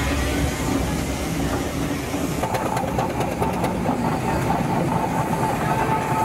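A heavy engine running steadily with a low rumble. About two and a half seconds in, a steady high tone joins it, along with a few sharp clicks.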